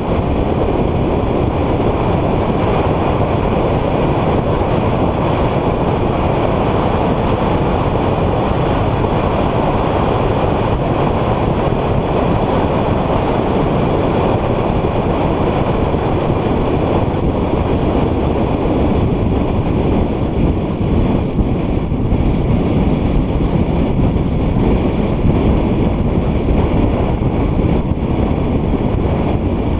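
Car driven at speed on a track: a steady, loud rush of wind and road noise.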